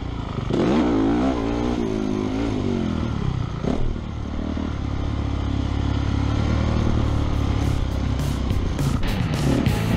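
Honda 450 motocross bike engine heard from the rider's helmet, revving up and down through the gears over the first few seconds, then running steadier. Music with a beat comes in near the end.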